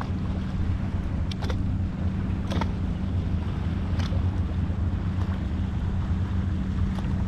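Wind rumbling on an action camera's microphone out on the water, with a steady low hum and a few faint clicks.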